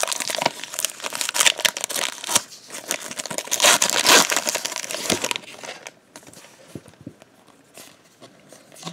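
Foil trading-card pack wrapper crinkling and tearing as it is pulled open by hand, for about five seconds. Then it goes much quieter, with only a few faint light ticks.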